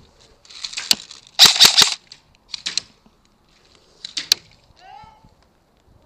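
Airsoft guns firing in short sharp snaps: a single shot, a quick burst of about four, then pairs of shots.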